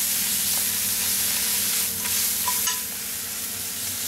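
Spinach leaves sizzling in browned butter in a non-stick frying pan as they are stirred and turned, with a few light clinks of the metal utensil against the pan.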